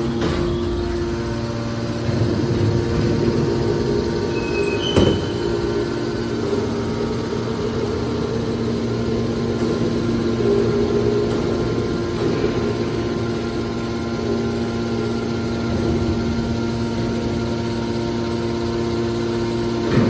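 Hydraulic scrap metal baler's power unit, its electric motors driving the hydraulic pumps, running with a steady hum. A single sharp knock about five seconds in.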